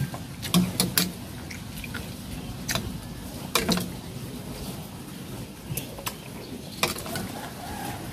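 Metal fork and spoon clinking against a plate and a soup bowl while eating: about ten sharp, irregular clinks, a few with a soft knock, over a low steady background.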